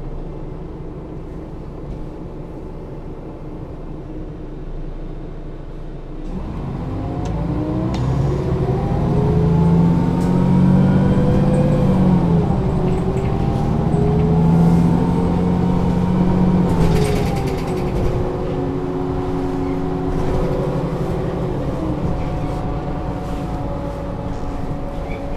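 Mercedes-Benz O 530 G Citaro articulated bus's diesel engine idling, then pulling away and accelerating hard, its pitch climbing, dipping at an upshift of the automatic gearbox and climbing again. It then drops back to a steadier, lower running note for the rest.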